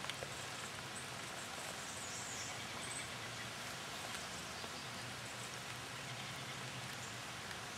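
Steady outdoor background hiss with a faint low hum. A few faint high chirps sound about two to three seconds in.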